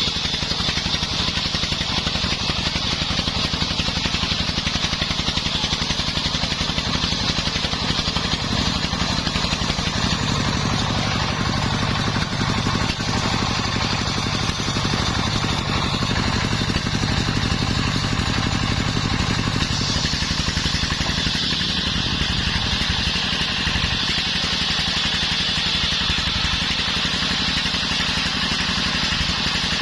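Engine-driven circular sawmill running steadily, its engine chugging with a fast even pulse while the blade cuts timber with a high whine. The whine changes in strength about two-thirds of the way through as the cut changes.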